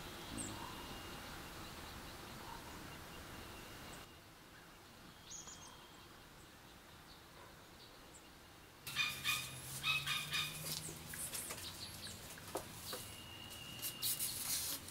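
Dry palm-leaf strips rustling and crackling as they are handled and woven, loudest in the last six seconds, with birds calling in the background.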